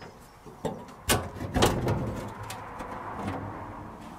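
Steel engine-access panel in a Piaggio Ape's load bed being unlatched and lifted off: a few sharp metal clicks and clunks about a second in, then a lighter scraping as the panel comes away.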